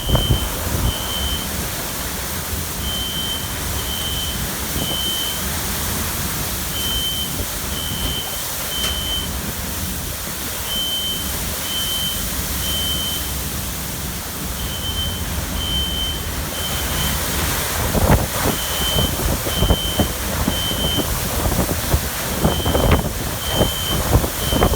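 Hurricane eyewall winds raging in gusts that grow stronger and more buffeting in the last third. Through them an electronic alarm keeps sounding, three high beeps at a time, with the set repeating about every four seconds.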